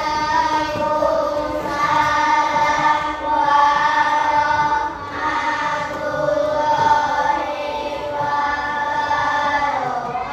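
A group of children singing or chanting together in unison, in sustained phrases of a second or two with short breaks between them.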